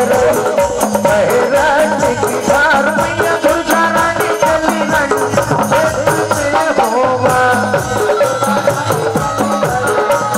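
Live Indian devotional folk music, in a passage without words: a wavering melody line over a steady, dense beat of percussion with jingling rattles.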